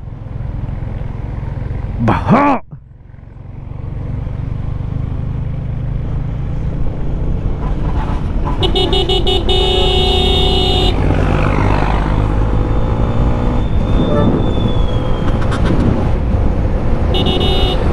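Yamaha Sniper 155 motorcycle under way, engine and wind noise rising and then running steady. A vehicle horn sounds a steady tone for about two seconds in the middle and briefly again near the end.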